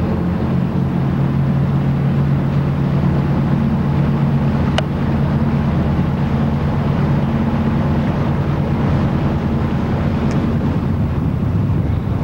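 Boat engine running steadily while under way, a constant low drone with a rush of wind and water over it.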